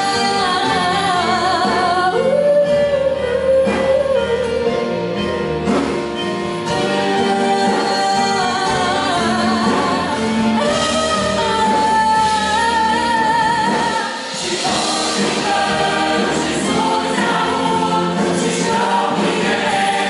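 Mixed choir singing a Christian choral song, accompanied by violins and guitars.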